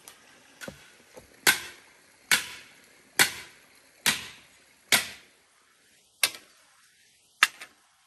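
Cut bamboo tubes and split pieces being handled and dropped onto one another, giving a string of sharp wooden clacks, about one a second, seven of them loud.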